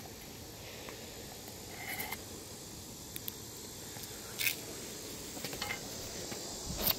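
Soft clicks and brief rustles of an air rifle and its pellets being handled, over a steady background hiss.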